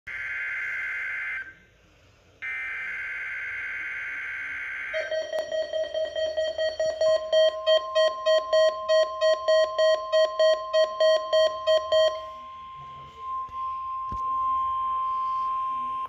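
NOAA weather radio required weekly test on Midland weather alert radios. It opens with two short warbling bursts of digital SAME header tones, then the radios' rapid alert beeping, about three beeps a second, which stops about three-quarters of the way through. Under the beeping and after it, the steady 1050 Hz warning alarm tone sounds, which signals a test of the public warning system.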